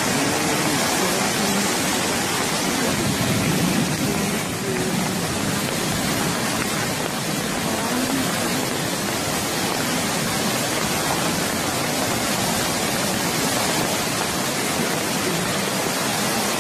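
Muddy flash-flood torrent rushing past in a steady, dense wash of churning water noise.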